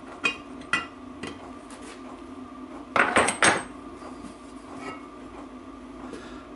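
Metal tools and the bare differential casing knocking and clinking on a workbench as the casing is handled. A few ringing metallic taps come in the first second or so, then a quick cluster of louder knocks about three seconds in.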